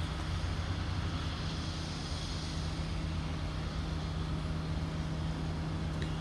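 Steady low mechanical rumble with a constant low hum, unchanging throughout, and a faint tick near the end.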